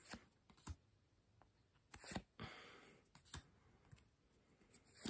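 Faint handling of stiff board-game cards: a few scattered soft clicks and, about halfway through, a brief rustle as a card slides against the others.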